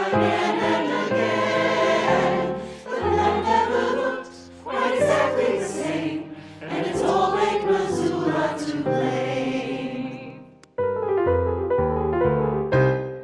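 A choir sings a closing passage over instrumental accompaniment. About ten seconds in the voices stop, and the accompaniment plays a few final notes alone before fading out.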